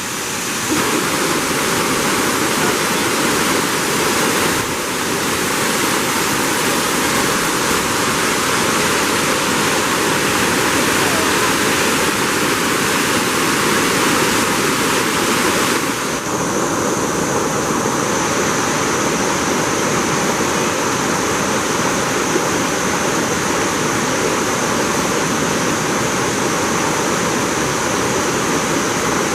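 Waterfall rushing loudly and steadily. A little over halfway through, the sound's colour changes abruptly and a steady high hiss joins the rush.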